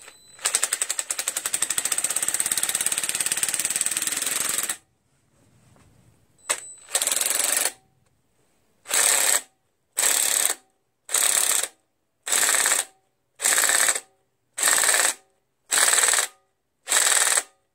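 Cordless drill turning a screw extractor in a broken bolt, giving a rapid, rattling run of about four seconds. After a pause come a string of short bursts about a second apart as the drill's battery dies.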